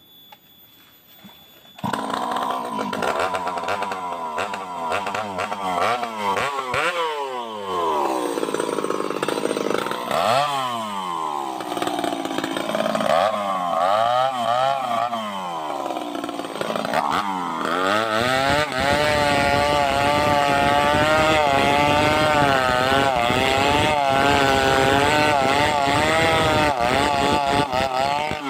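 Chainsaw engine comes in suddenly about two seconds in and revs up and down several times, then from about two-thirds through runs at steady high speed with a slightly wavering pitch as it cuts wood.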